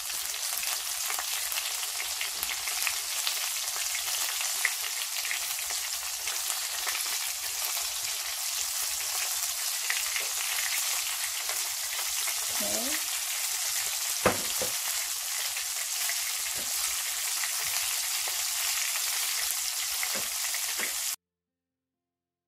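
Battered chicken pieces deep-frying in hot oil in a wire fryer basket: a steady, dense bubbling sizzle with a single sharp click partway through. The sound cuts off suddenly near the end.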